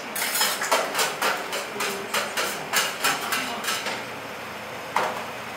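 Cleaver chopping on a chopping block: a quick run of sharp knocks, about three a second, for three and a half seconds, then one more knock near the end.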